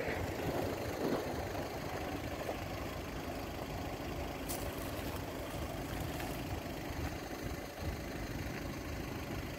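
Steady low rumble of car engines idling, with no distinct events apart from a faint click about four and a half seconds in.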